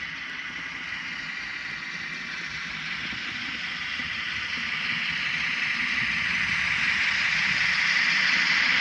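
Viessmann 2680 model Unimog running along the track, pulling its wagon, with a steady running noise that grows louder as it draws near and passes close by.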